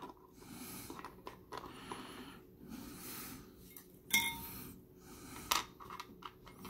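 Small hard plastic figure parts being handled and tapped together: a few light clicks, with a sharper clink about four seconds in and another click near the end.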